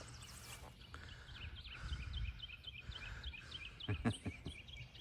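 Rapid run of short, high bird chirps over a low outdoor rumble, with a couple of soft knocks about four seconds in.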